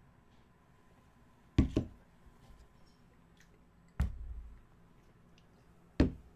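Knocks on a desk as a mug is put down and handled: a quick double knock about a second and a half in, a heavier thump with a short low thud at about four seconds, and a single sharp knock near the end.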